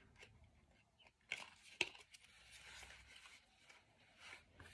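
Faint rustling and a few light taps of tarot cards being handled and gathered up, with near silence between.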